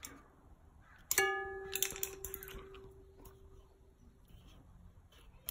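A single metallic ping about a second in, ringing at one clear pitch and fading over about three seconds. It is followed by a few light clicks from the fork's rebound-adjuster knob being handled and turned.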